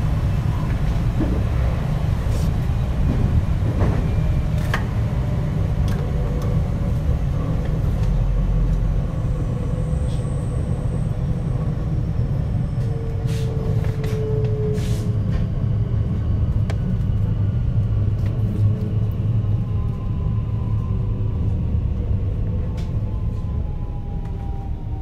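JR West 521-series electric train running, its Mitsubishi IGBT inverter and traction motors whining over a steady low rumble of wheels on rail, with a few sharp clicks. From about two-thirds of the way in, the inverter tones fall slowly in pitch as the train slows down.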